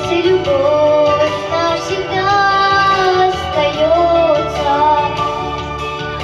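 Young girl singing a children's song into a microphone over a recorded backing track, her voice carrying a melody with long held notes.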